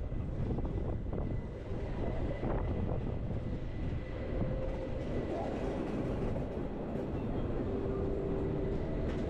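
Bernese Oberland Railway narrow-gauge electric train running: a steady rumble of wheels on rail with a faint constant high whine and a few light clicks.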